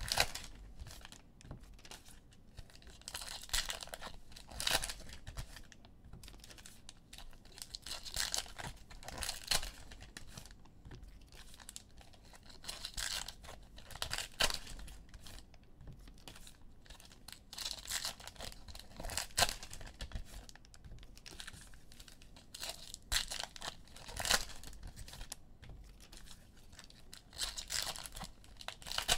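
Foil trading-card pack wrappers being torn open and crinkled by hand, in repeated short rustling bursts.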